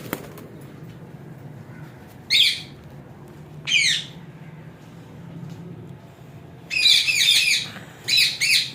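Parrot squawking: two short harsh calls a couple of seconds apart, then a quick run of squawks near the end.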